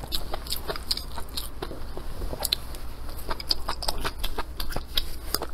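Close-miked chewing of stir-fried velvet antler mushrooms: a dense, irregular run of quick wet crunches and mouth clicks.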